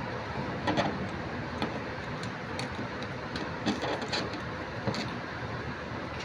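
Scattered light clicks and knocks as the carbon brush holders of a washing machine motor are handled and seated, about six in all, over a steady background hiss.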